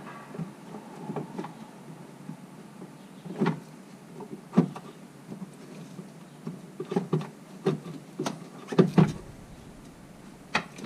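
Irregular knocks and clicks of a Spec D Tuning aftermarket tail light housing being pushed and seated into the body of a Ford Focus RS, its locating pin going into the hole. The loudest run of knocks comes about two-thirds through.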